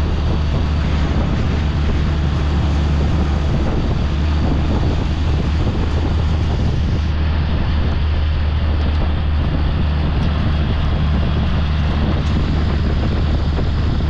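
An engine running steadily: an even low drone under a rushing noise, with no change in speed.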